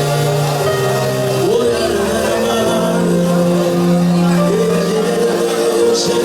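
Slow worship music: held keyboard chords over bass notes that change every second or two.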